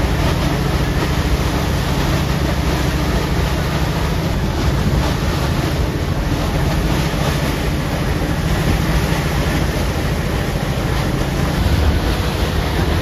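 A passenger boat's engines running with a steady low hum, under wind buffeting the microphone and the rush of water along the hull.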